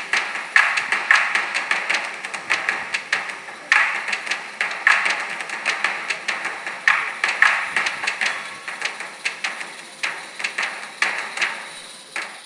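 Large-scale model Union Pacific steam locomotive and tender running past on garden railway track, with a dense clatter of wheels clicking over the rail joints. The clicking fades toward the end as the train moves away.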